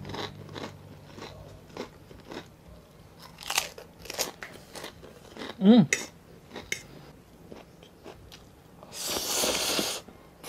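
Close-miked eating sounds: chewing with scattered crunchy clicks as he bites into fried toppings, a short hum about halfway through, and a noisy slurp of instant pancit canton noodles about a second long near the end.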